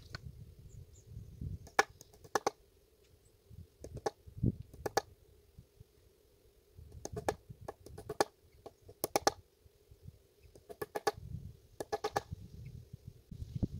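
Quick clusters of sharp knocks and clicks from fence-repair work, over a low uneven rumble.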